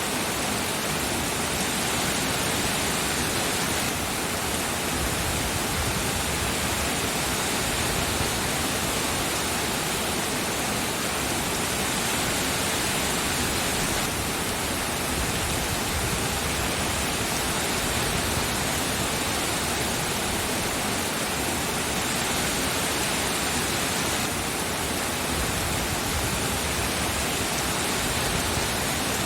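Steady, dense rainfall: an even hiss of heavy rain with no separate drops or thunder standing out.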